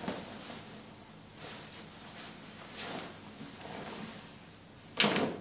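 Soft rustling of suit-jacket cloth as the jacket is taken off, with a short, much louder burst of noise about five seconds in.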